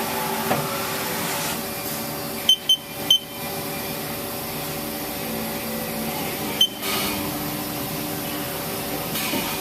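Haas SL-20T CNC lathe running with a steady machine hum. It is broken by short high electronic beeps: three in quick succession about two and a half seconds in, and another near seven seconds.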